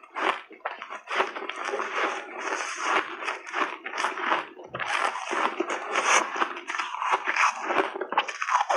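Refrozen blueberry shaved ice crunching as it is bitten and chewed close to a lapel mic: a dense, continuous run of crackles and crunches.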